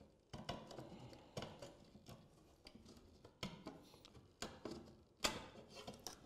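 Hand slate cutter shearing a natural roofing slate: a series of short, sharp crunches at uneven spacing, about two a second, as the blade bites along the marked line to cut the eave slate to length.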